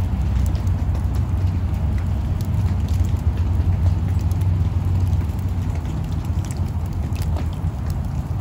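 A steady low rumble under a light hiss, with scattered faint ticks of wet snow landing on the leaf-covered lawn and wet pavement.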